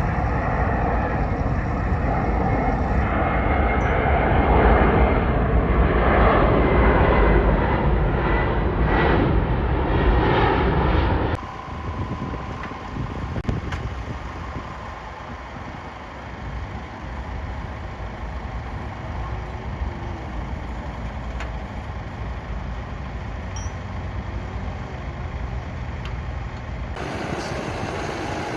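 Tractor engines running steadily as they work the field, in clips joined by sudden cuts: loud with a heavy low rumble for about the first eleven seconds, then much quieter.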